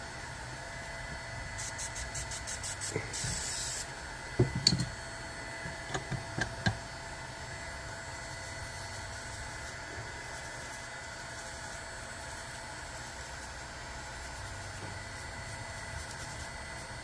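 Aerosol can of MG Chemicals flux remover spraying onto a circuit board: a run of short hissing bursts, then one continuous spray a little under a second long. A few light taps follow.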